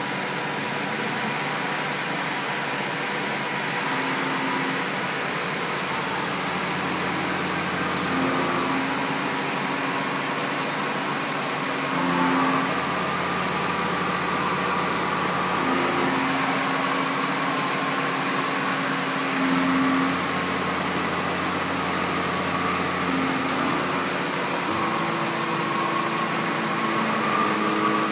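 CNC machining center end-milling 16MnCr5 steel with a 16 mm cutter at 1600 rpm: steady machining noise with a pitched cutting tone that shifts to a new pitch every few seconds as the cutter's engagement changes along the toolpath.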